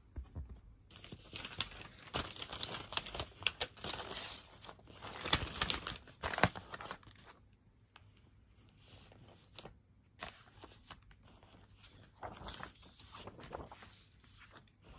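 Paper rustling and crinkling as a vinyl LP is slid into its paper inner sleeve and a printed insert is pulled out and handled. The rustling is busiest in the first several seconds, dies down, then picks up again briefly near the end.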